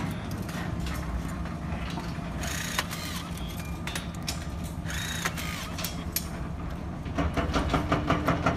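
A steady engine drone with scattered sharp clicks and metal ticks from wire and rebar being handled. About seven seconds in, a regular pulsing of about three beats a second comes in over the drone.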